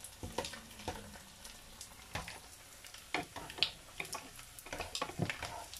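Daing (dried fish) frying in oil in a pan: a steady faint sizzle with scattered pops and clicks as the pieces are turned with tongs.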